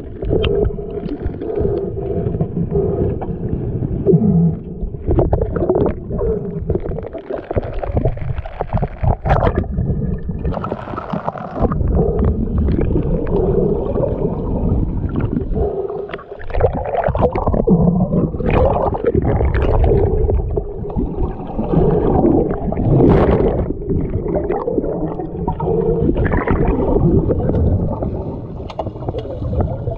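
Swimmers' water churning during an underwater hockey game: continuous muffled gurgling and sloshing, with a few sharp clicks scattered through it.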